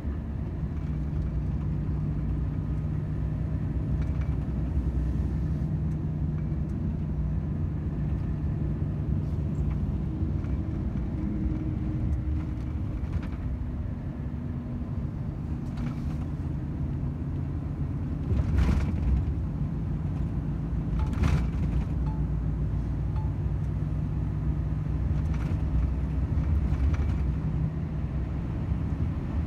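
Volvo FH 500 truck's 13-litre six-cylinder diesel running steadily on the road with a low rumble. Two short sharp knocks come about two and a half seconds apart, past the middle.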